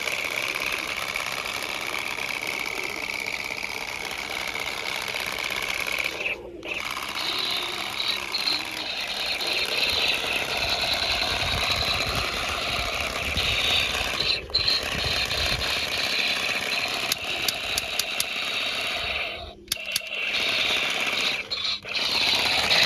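Toy space-war assault rifle playing its electronic sound effects: a continuous buzzing, rattling stream of synthesized gun noise with a high electronic tone. It breaks off briefly about 6, 14, 20 and 22 seconds in.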